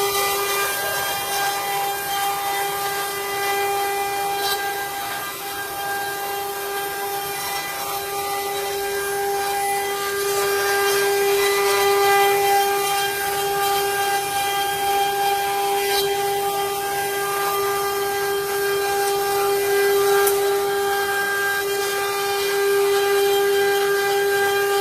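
CNC wood router running and carving wood: a steady whine from the spindle with a continuous hiss of cutting, rising and easing a little in loudness.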